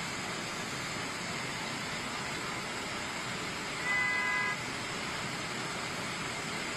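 Floodwater rushing through a street, a steady, even rushing noise. About four seconds in, a vehicle horn sounds once for under a second.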